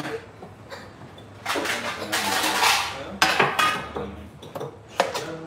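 Kitchen clatter of dishes and utensils: a sharp knock at the start, a rushing noise lasting about a second and a half, then a few more knocks and clinks.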